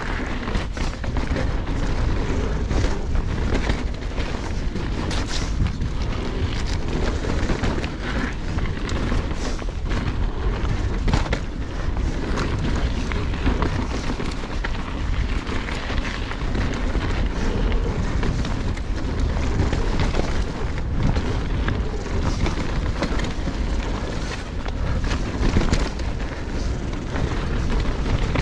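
Mountain bike descending a loose gravel and dirt trail at speed: a constant low rumble of wind on the action-camera microphone over the crunch of knobby tyres on stones, with irregular clicks and knocks from the bike rattling over bumps.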